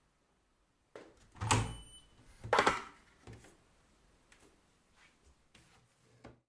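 Front-loading washing machine's porthole door being unlatched and pulled open at the end of the cycle: a short beep, then two loud thunks about a second apart, followed by a few faint knocks.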